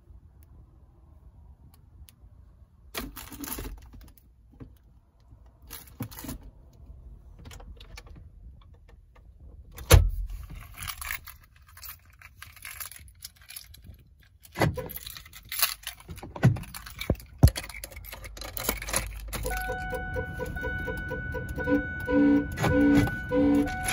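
Car keys jangling, with clicks and knocks as the keys are handled around a Ford Expedition; one sharp knock is loudest, about ten seconds in. Near the end a steady electronic tone starts and is joined by a pulsing tone, about two pulses a second.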